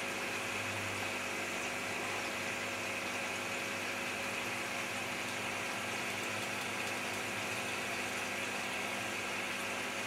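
Aquarium air pump running with a steady low hum and hiss, driving the tank's sponge filters.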